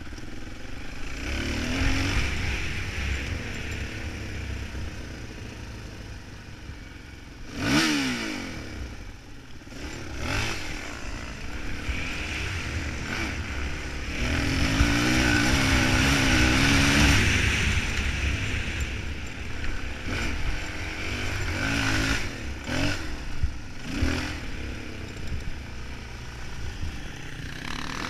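Suzuki DRZ400E's single-cylinder four-stroke engine under load riding off-road, its pitch rising and falling with the throttle: a sharp rev a few seconds in and a longer high-revving stretch around the middle, with a few knocks from the bike going over rough ground.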